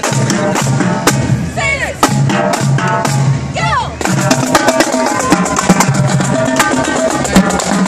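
Marching drum line playing a cadence: rapid snare and tenor drum strokes over a steady bass-drum beat, with held pitched tones alongside.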